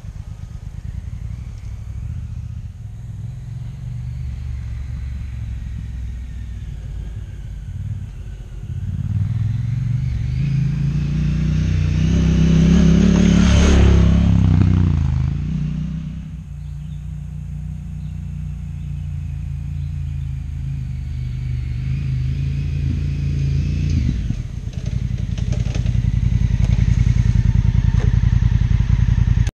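Honda Africa Twin adventure motorcycle's parallel-twin engine riding a dirt trail. It grows louder as the bike approaches, is loudest about halfway through as it passes close, and falls away. It grows loud again near the end as the bike comes up close once more.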